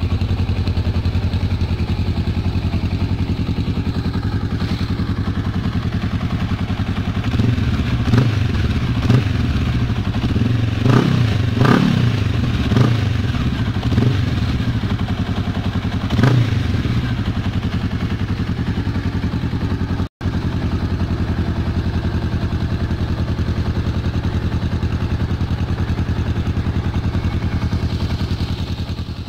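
Honda Rebel 500's parallel-twin engine running through an aftermarket carbon-kevlar muffler fitted with a dB killer, idling steadily with a run of short throttle blips between about a quarter and just past halfway through, then settling back to idle.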